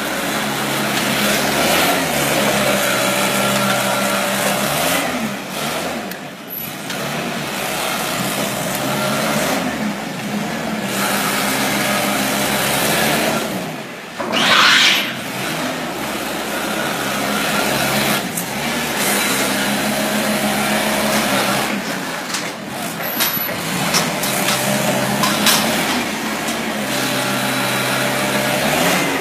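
LPG-powered Toyota forklift engine running, its pitch rising and falling repeatedly as it drives and works the mast. A short loud hiss about halfway through.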